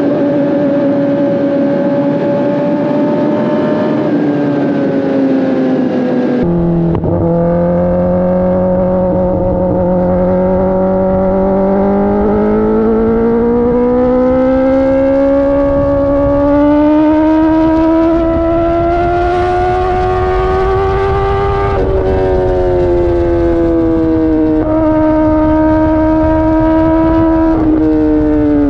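2024 Kawasaki ZX-10RR's inline-four engine running under way: a steady note for about six seconds, then a sudden change, after which the pitch climbs slowly for some fifteen seconds and drops in three steps near the end. Low wind rumble on the microphone joins after the change.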